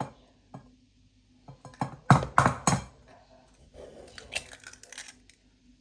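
Kitchen utensils and cookware knocking and clinking: three loud knocks in quick succession about two seconds in, then a run of lighter clicks and clinks.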